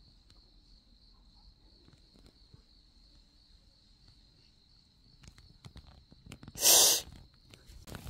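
Crickets trilling steadily at a high pitch over faint rustling and crackling in the brush. About six and a half seconds in, one short, loud, breathy hiss cuts in.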